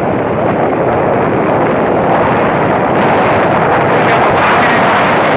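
Loud, steady rush of road traffic mixed with wind noise on the microphone, growing a little louder about halfway through.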